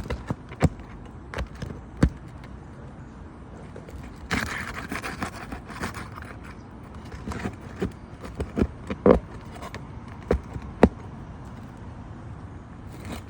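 Scraping and scattered sharp knocks and clicks as a wind-creased roof shingle is worked loose for removal, with a longer stretch of scraping about four seconds in.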